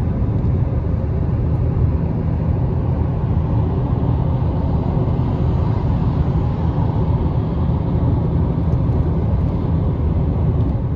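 Steady road and wind noise of a car travelling at highway speed, heard from inside the car: a heavy, unbroken low rumble.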